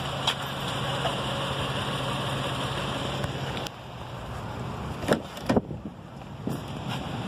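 A steady engine hum with hiss, like a vehicle idling, cuts off suddenly about halfway through. Then come two sharp clicks close together, a car door's handle and latch being opened, and a lighter click a second later.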